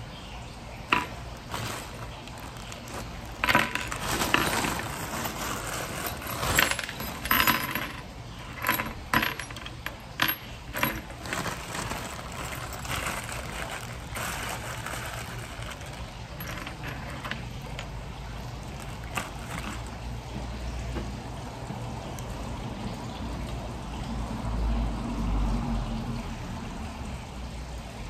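Metal screws clinking and a zip-lock plastic bag crinkling as small hardware is picked through, with a string of sharp clicks in the first half. A low rumble swells near the end.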